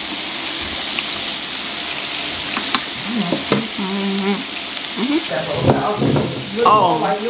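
Beef and salmon sizzling on the grill plate of an electric hot pot, a steady hiss, with a couple of light clicks of metal tongs. Short vocal sounds without words join in over the second half.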